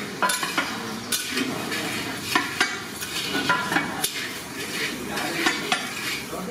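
A long metal spatula scraping and knocking against a large metal cooking pot as a heavy batch of fried rice is stirred, with irregular strokes about twice a second.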